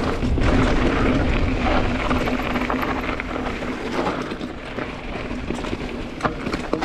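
Pivot Trail 429 mountain bike riding fast down a rough trail: tyres rolling over dirt and rock, with many rattles and knocks from the bike, over a low rumble of wind on the mic. The ride noise eases off a little after the halfway point.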